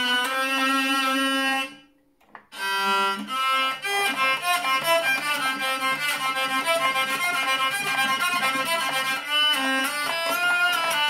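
A six-string, 21-key hurdy-gurdy of maple and linden wood being played: the cranked wheel bows a melody on the keyed strings over a steady low drone. The playing stops for under a second about two seconds in, then starts again.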